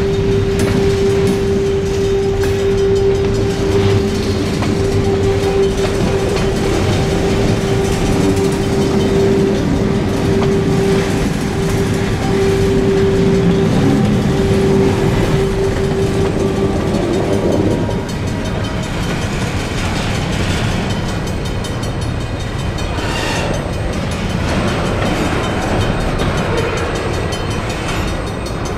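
Freight cars, covered hoppers, rolling past over the rails with a steady rumble and clatter. A steady ringing tone sounds through the first two-thirds and stops about eighteen seconds in.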